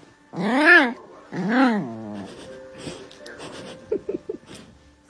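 A small fluffy puppy giving two drawn-out howl-like cries that rise and fall in pitch, in the first two seconds, followed by softer small sounds.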